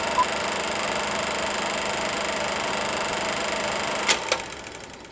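Film projector running with a steady whirring clatter, with one short beep just after the start ending a countdown. Two sharp clicks come about four seconds in, then the clatter fades away.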